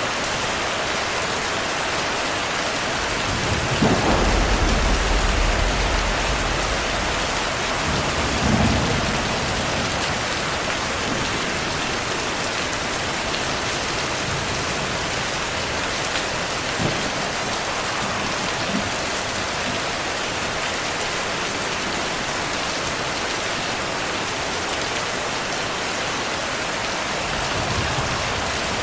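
Steady heavy rain with rolling thunder. A loud low rumble begins a few seconds in and lasts several seconds, a second, shorter roll follows soon after, and a fainter rumble comes near the end.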